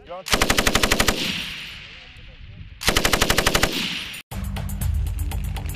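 Belt-fed machine gun firing two short bursts of about a dozen rounds each, roughly two seconds apart, each trailing off in an echo. Near the end the gunfire gives way to a steady low rumble.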